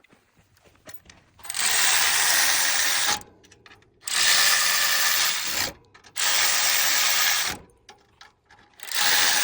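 Power tool running bolts down on a bumper-mounted rack bracket, in four separate bursts of about a second and a half each, with short pauses between.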